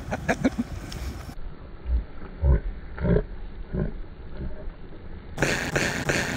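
A voice played back slowed down, deep and drawn out: three or four low bursts about half a second apart, the rider's laughter in a slow-motion replay.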